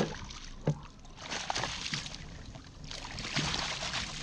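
Water splashing and sloshing against a fishing kayak in two spells of about a second each, with a sharp knock just under a second in.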